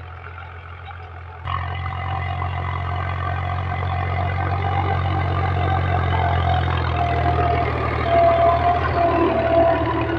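Powertrac 435 tractor's three-cylinder diesel engine running steadily under load while pulling a cultivator through the soil. The sound jumps in level about a second and a half in, then grows louder as the tractor draws close, loudest near the end.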